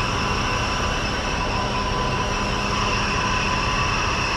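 Truck-mounted crane's engine and hydraulics running steadily under load, with a constant high whine over a low rumble, while it lifts and swings away a large cut section of pine.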